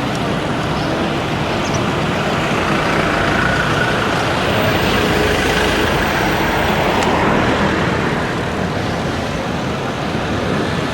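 Busy road traffic heard from a bicycle: cars and trucks running by in a steady roar, swelling as a vehicle passes close through the middle.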